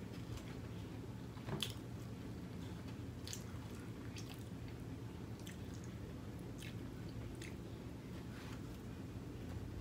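Close-up eating sounds: chewing of Chinese takeout food, with short moist clicks scattered throughout and one sharper click about a second and a half in, over a low steady background hum.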